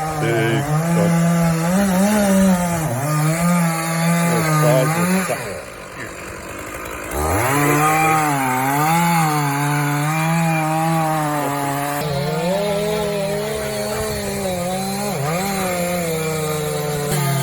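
Two-stroke chainsaw cutting beech wood, its engine note wavering up and down under load. It eases off for about a second and a half near the middle, then bites back in at full revs.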